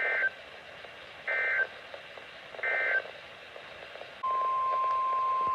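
NOAA Weather Radio emergency alert tones: three short warbling SAME digital data bursts, then the steady single-pitch 1050 Hz weather radio alert tone that begins about four seconds in. The tones mark the break between one broadcast warning message and the next.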